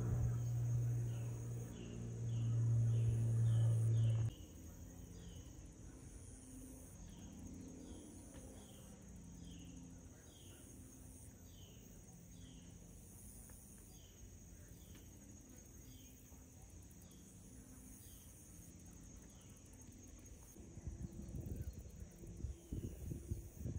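Outdoor insect chorus: a steady high buzz with a short falling chirp repeating about twice a second. A loud low hum is the loudest sound for the first four seconds and cuts off suddenly, and low rumbling thumps come in near the end.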